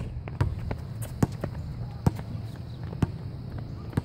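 Basketball bouncing on a hard outdoor court: a string of separate sharp thuds at uneven intervals as the ball is dribbled and passed.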